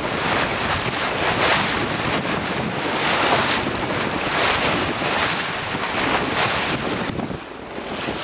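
Wind buffeting the microphone over the rush and splash of water along a sailboat's hull as it sails through chop, swelling and easing several times.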